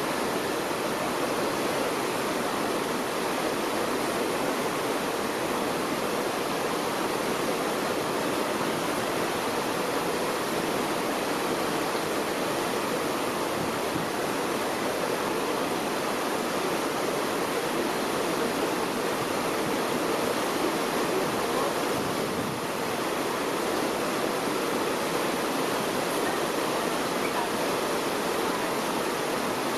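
Steady rushing noise of sea water and wind passing a moving cruise ship: an even hiss with no change and no distinct events.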